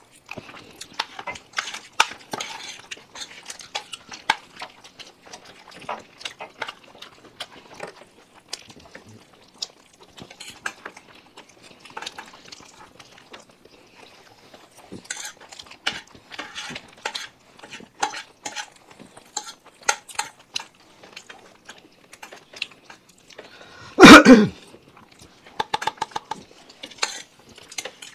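Spoons clinking and scraping on plates, with many scattered light clicks of cutlery on dishes, and one loud short burst about three quarters of the way in.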